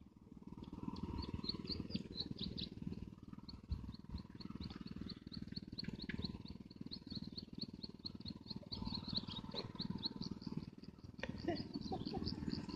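An animal chirping high and fast, about four short chirps a second, over a steady low rumble.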